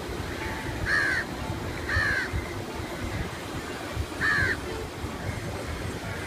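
Crows cawing: two harsh caws a second apart, then a third about two seconds later, over a steady low background rumble.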